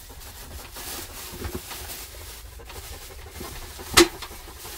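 Belgian Malinois panting close by, with a single sharp click about four seconds in as a small plastic pedal bin is handled.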